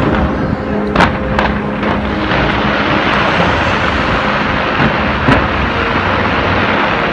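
Fireworks display: a dense, continuous rush of bursting shells, with a few sharp bangs standing out, the loudest about a second in.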